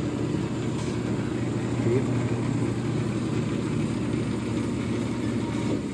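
Wilton 7020 horizontal bandsaw running with a steady motor and blade hum while its head is lowered into the cut.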